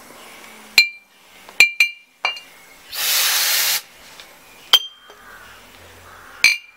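A compressed-air blow gun fires one loud hissing blast about three seconds in, lasting under a second, to spin up a fidget spinner. Around it come about six sharp clinks of the spinner striking small glass bottles.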